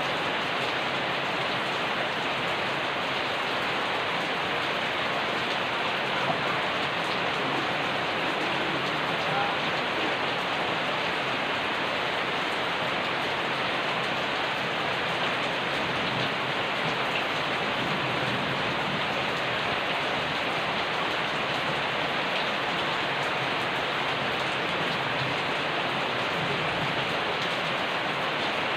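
Steady, even rain falling and pattering on surfaces, a continuous hiss with no change.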